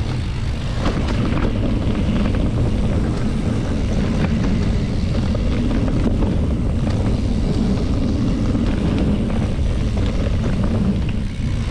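Engine running steadily as a loud low rumble, with wind noise on the microphone.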